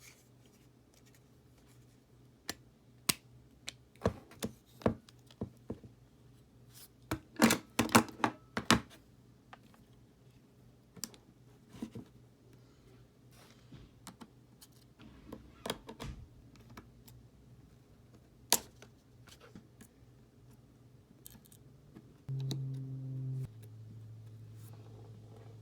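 Tools clicking, scraping and tapping on an iPhone 6 as its screen is pried open, with scattered sharp clicks and a dense cluster about a third of the way in. Near the end a short, louder steady hum sounds for about a second, then a fainter hum carries on.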